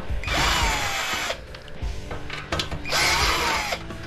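Cordless drill/driver running twice, about a second each time, its motor winding up and then slowing, backing screws out of the sheet-metal housing of a drinking-fountain water cooler.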